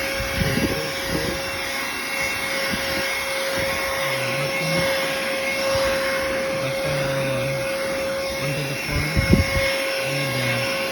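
Cordless handheld car vacuum cleaner running steadily with a constant high motor whine and suction hiss, with a few short knocks about half a second in and again near the end.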